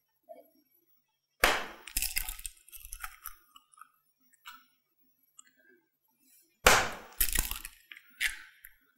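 Raw eggs being cracked against a clear glass mixing bowl and dropped in: sharp shell cracks and clinks on the glass. They come in two clusters, one about a second and a half in and another about seven seconds in.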